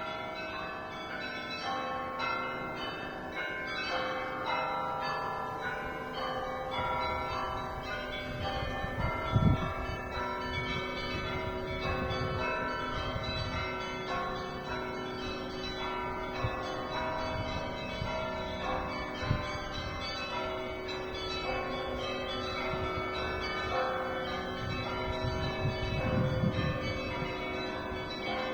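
Russian Orthodox church bells being rung: many bells of different pitches struck in a fast, overlapping pattern, with deeper bells ringing on underneath. Two low thuds, about a third of the way in and near the end.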